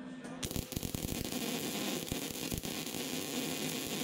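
MIG welder arc crackling and hissing steadily as it welds a new steel floor sheet into a dump truck box, striking up about half a second in after a low hum.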